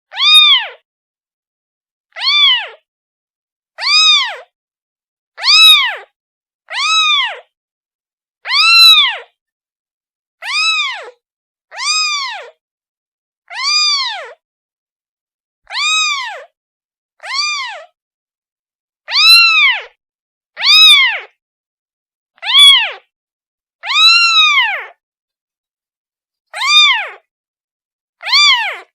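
A kitten meowing over and over, about seventeen high-pitched calls, each rising then falling in pitch, one every second and a half to two seconds: a kitten calling for its mother.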